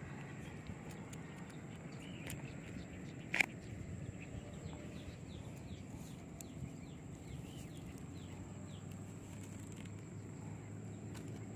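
Small birds chirping in quick runs of short, falling notes over a faint steady outdoor background, with one sharp click about three and a half seconds in.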